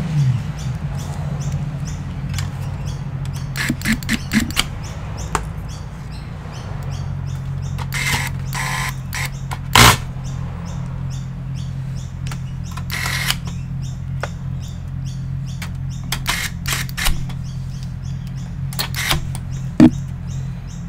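Hands working on a computer: scattered small clicks and taps, a loud sharp click about ten seconds in, and brief scraping twice, over a steady low hum.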